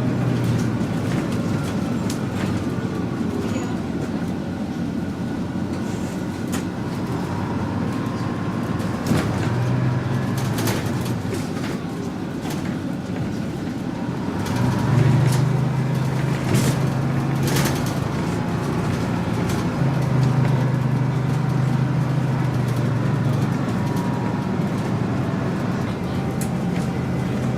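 Bus engine running steadily while under way, growing louder for a few seconds at a time in the second half, with scattered sharp clicks and knocks.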